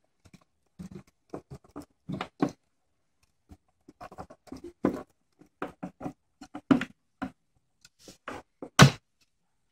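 An old knife tip turning tiny screws out of a CD/DVD drive's sheet-metal case: irregular metal-on-metal clicks and scrapes, with a sharp click near the end.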